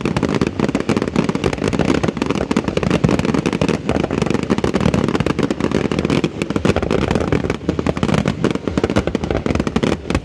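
Fireworks display: a dense, unbroken barrage of aerial shell bursts, rapid overlapping bangs and crackle with no pause between them.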